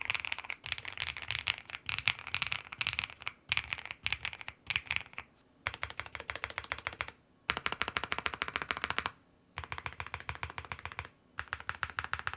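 Womier SK71 Pro full-aluminium 75% mechanical keyboard with linear switches being typed on. First comes a fast, continuous run of keystrokes, then four separate bursts of rapid, even key strokes, each about a second and a half long with short pauses between.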